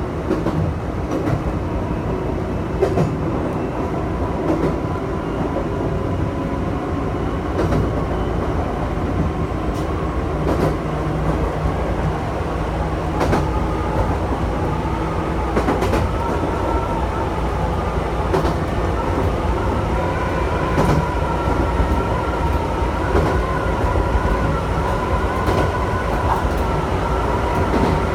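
Chichibu Railway electric train running, with a steady low rumble and a whine whose pitch creeps up slightly and grows stronger from about halfway. Wheels clack over rail joints at irregular intervals.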